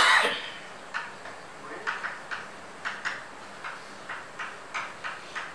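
Chalk writing on a blackboard: a run of short, scratchy taps and strokes, irregular, about two or three a second, as words are chalked up. A louder thump sounds right at the start and trails off within half a second.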